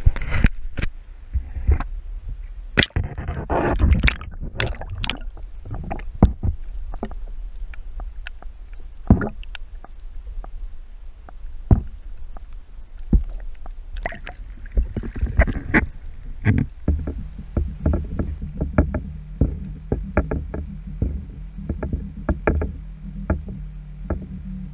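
Kayak on the water: irregular splashes of paddle strokes and knocks against the plastic hull, over low wind rumble on the microphone. About two-thirds of the way through, a steady low hum comes in and holds.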